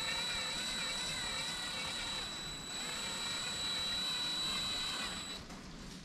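Cordless drill running steadily with a small bit, drilling into a plastic rivet head on a power antenna housing. It stops near the end. The bit is not starting straight because the hole was not center-punched first.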